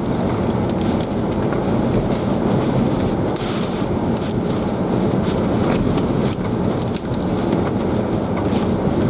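Hurricane winds blowing hard and steadily around a vehicle, with many sharp ticks and pops from debris striking it.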